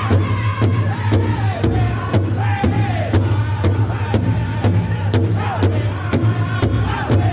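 Powwow drum group singing a contest song: several men strike one large shared drum with sticks in a steady beat, a little over two strokes a second, while singing together in falling phrases.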